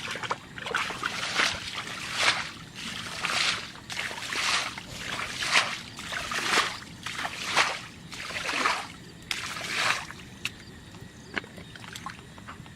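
Water splashing in a steady rhythm, about one splash a second, stopping about ten seconds in.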